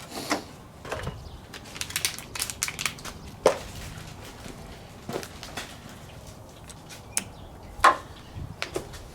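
Irregular plastic clicks, snaps and knocks of an old vehicle lamp housing being pried and worked loose, where its rubber retaining tips have stuck over the years; a quick run of clicks early on gives way to a few sharper single snaps.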